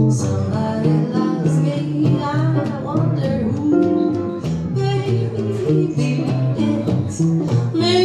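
Hollow-body archtop jazz guitar playing a walking bass line with chords underneath, with a woman's voice singing along at times.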